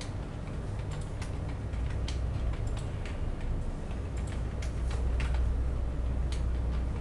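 Typing on a computer keyboard: irregular keystrokes, some in quick runs, over a low steady hum.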